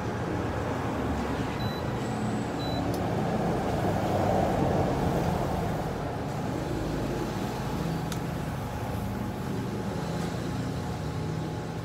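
Steady low vehicle-engine rumble, getting louder around four to five seconds in and then easing off.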